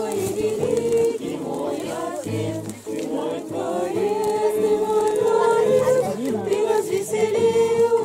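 A group of voices singing a Christian hymn together, with long held notes.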